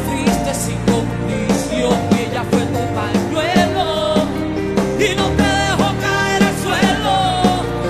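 Live concert music: a band playing a song with a steady beat and a wavering melody line over it.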